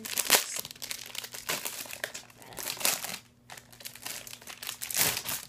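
Plastic wrap crinkling and crackling as it is pulled off a hardcover planner, in a dense run of crackles with louder surges near the start, about halfway through and near the end.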